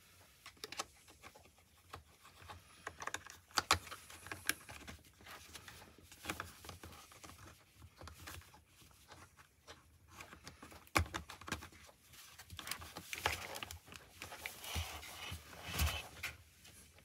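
Hands handling the plastic parts of a motorcycle helmet and intercom mount, making scattered clicks, taps and rubbing. The louder clicks come about 11 s in and again later on.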